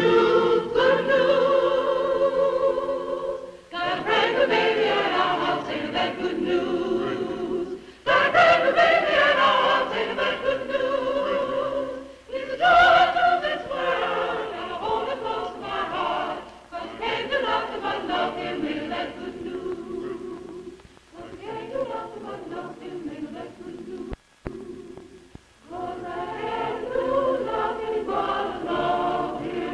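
Choir singing unaccompanied, in phrases of about four seconds with short breaks between.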